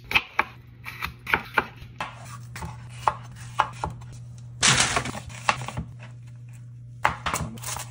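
Knife cutting vegetables on a plastic cutting board: a run of sharp, irregular cuts, with a louder scrape about five seconds in.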